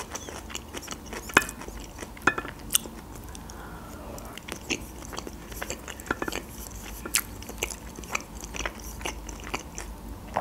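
Chewing and wet mouth smacking while eating soft pelmeni dumplings in cream sauce, with irregular sharp clicks throughout and a few louder smacks in the first few seconds.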